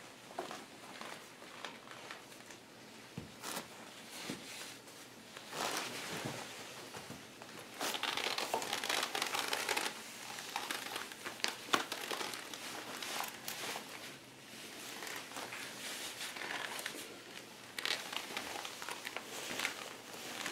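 Shiny PVC clothing and boots crinkling and rustling as the wearer moves, in uneven spells with small clicks; loudest about eight to ten seconds in.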